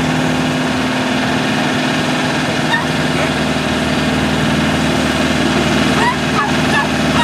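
Green Deutz tractor's air-cooled diesel engine idling steadily.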